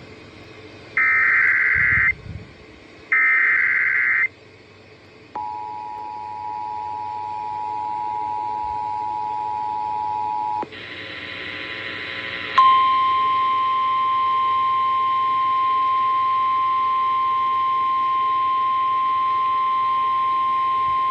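Emergency Alert System tones over FM radio: two harsh, warbling SAME header data bursts about a second each, then the two-tone attention signal for about five seconds. After a brief hiss comes the steady single-pitch NOAA Weather Radio warning alarm tone, held about nine seconds, announcing a severe thunderstorm warning.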